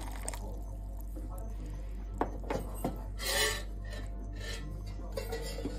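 Light clinks and knocks of glassware as a glass mug and bowl are handled on a stone countertop, with a short scraping sound about three seconds in.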